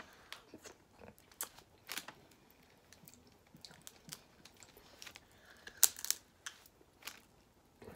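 Snow crab leg shells cracking and snapping as they are bitten and broken open, with chewing between the cracks. The cracks come irregularly, the sharpest pair about six seconds in.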